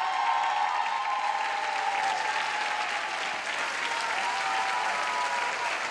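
Live studio audience applauding steadily as a dance routine ends, with cheering voices held over the clapping.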